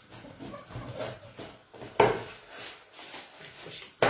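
Wooden rolling pin rolling and rubbing over fresh pasta dough on a wooden pastry board, with two sharp wooden knocks about two seconds apart.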